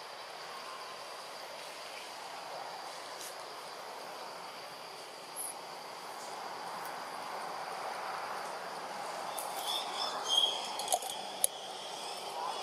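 Outdoor tree-canopy ambience: a steady high insect drone over an even background hiss, with a few short sharp chirps and clicks near the end.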